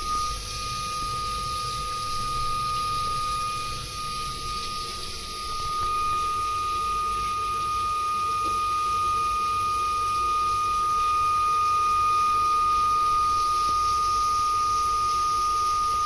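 Ideal Independent C24 combi boiler whistling while running on hot water: one steady high-pitched tone that gets a little louder about five or six seconds in.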